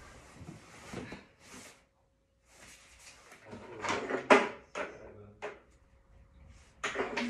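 Scattered rustling and knocks from handling things close by, like a drawer or cupboard being worked, with the sharpest knock about four seconds in.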